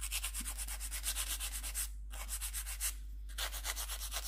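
Nail file rasping in quick back-and-forth strokes across a plastic soft gel press-on nail tip, shaping it to a point, pausing briefly twice.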